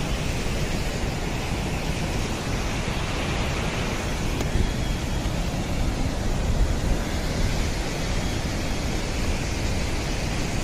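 Steady rushing of a mountain stream and waterfall over rocks, with wind buffeting the microphone.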